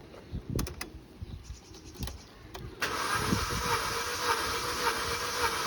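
A few light clicks, then about three seconds in the Vauxhall Astra's petrol engine starts cranking over on its starter motor with the spark plugs out: a steady whirring with an even pulse. This is a wet compression test on the low number 2 cylinder, where the gauge stays at about 75 psi, a sign of a fault in that cylinder.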